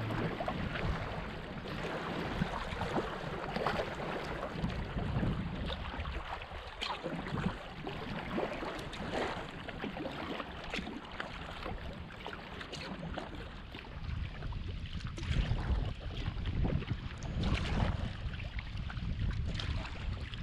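Water splashing and lapping around a kayak under way on a river, with irregular small splashes throughout. Wind rumbles on the microphone, stronger in the second half.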